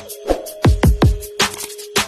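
Electronic outro music: punchy bass drum hits several times a second over a steady held synth note.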